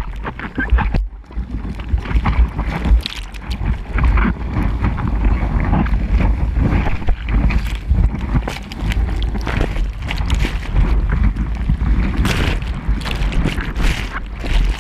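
Seawater splashing and sloshing around a camera held at the surface in breaking surf. Irregular splashes come over a constant deep rumble of water and wind buffeting the housing.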